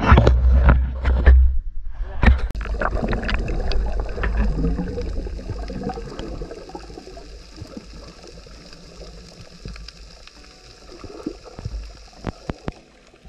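Someone jumping from a boat into the sea: a low wind rumble on the microphone, a splash about two seconds in, then underwater bubbling and gurgling that slowly fades, with a few faint clicks near the end.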